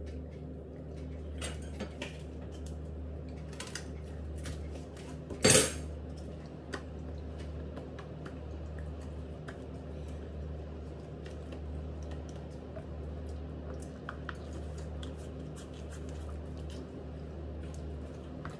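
Handling noise from a kitchen baster and its cleaning brush: scattered small clicks and taps as the parts are moved about, with one loud knock about five and a half seconds in, over a steady low hum.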